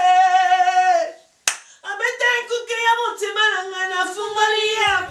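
A woman singing unaccompanied, holding long notes. About a second in, the song breaks off; a single sharp click follows, then the singing resumes.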